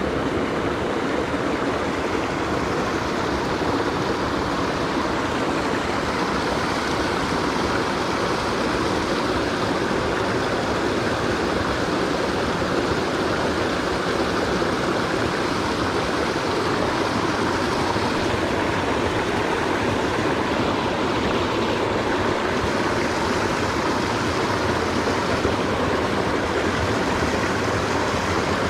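Mountain stream rushing over rocks: a steady, even wash of running water throughout.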